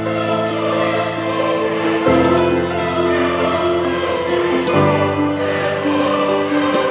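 Background music of sustained held chords, changing roughly every two and a half seconds.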